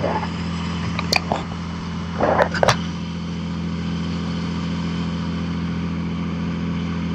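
Gillnet boat's engine running with a steady drone, with a few short knocks and clatters about one and two and a half seconds in.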